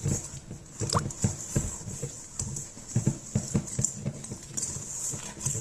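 Wire whisk beating a thick banana bread batter in a stainless steel bowl: quick, uneven strokes clacking against the metal bowl, about three a second.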